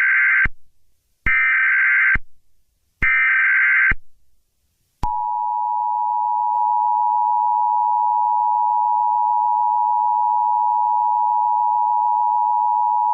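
Emergency Alert System header and attention signal. First comes the end of one burst of screeching digital data tones, then two more bursts, each just under a second long and spaced about a second apart. About five seconds in, the steady two-tone EAS attention signal begins and holds unbroken for the rest.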